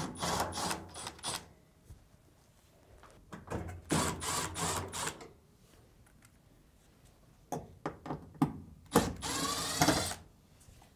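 Cordless Milwaukee Fuel driver backing out three screws, one after another in three short runs. The last run ends in a rising whine.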